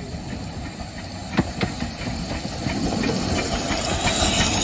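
A 15-inch-gauge steam locomotive coming slowly up alongside, its steam hissing and growing louder. There are two sharp knocks about a second and a half in, then light regular clicks of the wheels over the rail joints.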